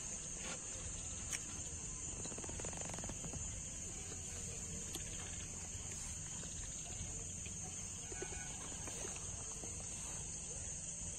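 Steady high-pitched chirring of a night-time cricket chorus, over a low rumble and a few faint clicks.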